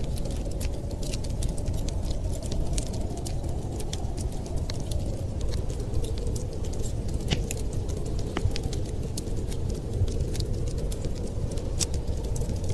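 Wood fire in a fireplace crackling, with frequent small sharp pops scattered irregularly over a steady low rumble.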